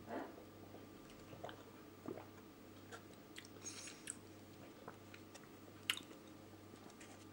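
Faint small mouth sounds, lip smacks and clicks, of someone tasting a drink. About six seconds in comes one sharp click as a cardboard drink carton is handled.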